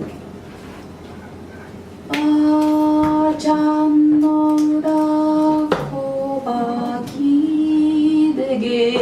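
A voice singing long held notes in an improvised vocal session, starting about two seconds in. The pitch steps to a new note a few times.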